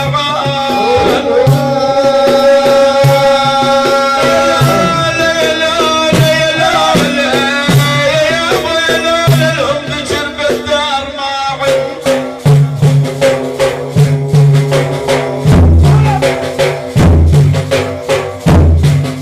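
Sufi dhikr chanting: a lead voice sings long held lines over rhythmic drumming with rattling percussion. About two-thirds of the way in the singing gives way to heavier, evenly spaced drum strokes.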